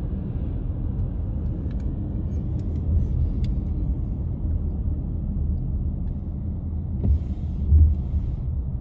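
Car interior road noise while driving: a steady low rumble of engine and tyres, with a brief louder low thump near the end.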